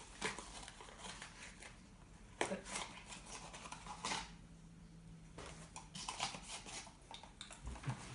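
Cube packaging being handled and opened: a faint run of scattered rustles and small clicks, with a few sharper clicks about two and a half and four seconds in.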